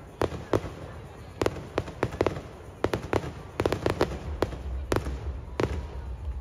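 Aerial firework shells bursting close by: a quick, irregular series of sharp bangs and crackles, more than a dozen in a few seconds.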